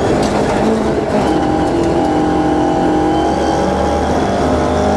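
Rally car engine running hard at high revs on a gravel special stage, heard onboard. It is held steady in one gear for about three seconds, then eases off near the end.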